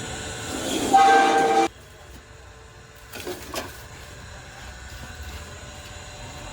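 A vehicle horn sounds in one loud held blast of about a second, which cuts off sharply, followed by lower steady street noise.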